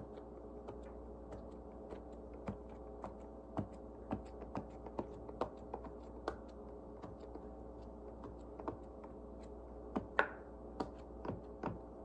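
Bubbles of a giant silicone dinosaur pop-it being pressed in by fingertips: a string of soft, irregular pops, roughly one or two a second, a few louder ones about ten seconds in.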